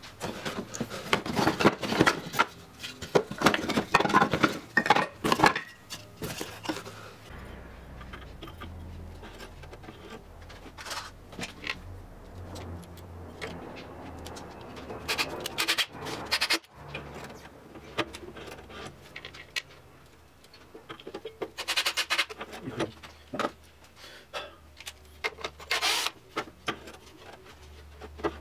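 Wood pieces and tools being handled: scattered knocks, clatters, rubs and scrapes, busiest for the first few seconds, then in short clusters over a faint low hum.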